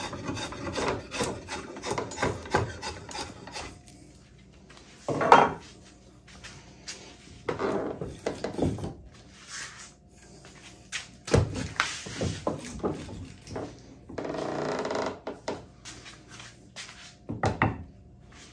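Drawknife shaving hard hickory: a run of quick scraping strokes for the first few seconds, then separate strokes every second or two, with one longer, steady pull about fourteen seconds in.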